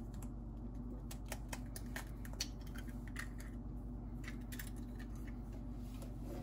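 Faint, scattered light clicks and taps from kitchen utensils and bowl being handled, busier in the first few seconds, over a steady low hum.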